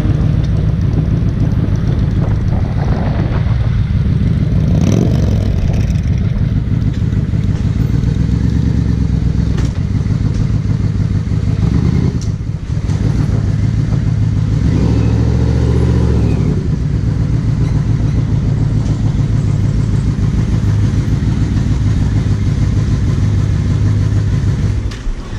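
Large touring motorcycle engine running at low speed and idling, with a throaty, pulsing note. The revs rise briefly about midway.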